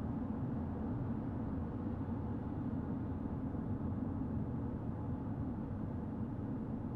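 Steady low rumble of a car driving along a main road, the even mix of tyre and engine noise, with no sudden sounds.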